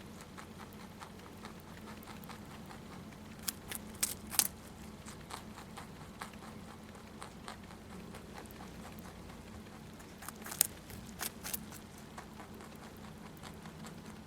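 Pet rabbit chewing a carrot up close: crisp crunching clicks, in two quick clusters about four seconds in and again near eleven seconds, with fainter chewing ticks between.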